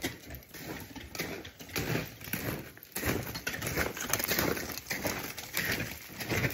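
Footsteps crunching in snow and ice close by, an irregular run of short crunches and clicks.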